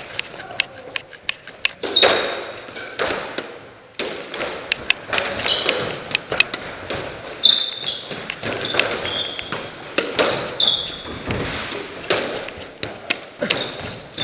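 Squash rally: the ball knocking off rackets, walls and floor in quick sharp strikes, with short high squeaks of court shoes on the wooden floor between them.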